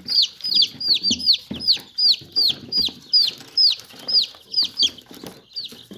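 Newly hatched chicks peeping: a steady string of short, high-pitched peeps, each rising briefly then falling, about three a second.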